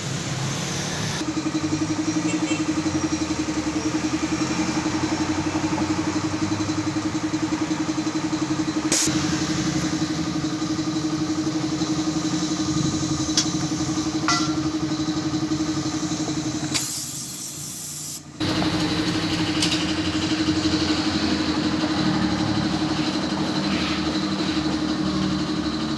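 Steady mechanical drone of a running motor, with a constant hum. It sags briefly about two-thirds of the way through, then comes back suddenly. A few faint light clicks sit over it.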